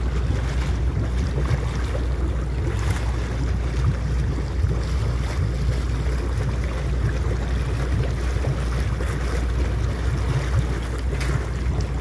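Small motorboat under way at sea: a steady low engine drone with wind rushing over the microphone and the noise of water around the boat.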